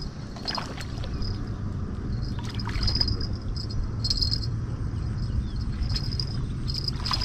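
Insects chirping in short, high bursts that repeat irregularly, over a steady low rumble of outdoor background noise.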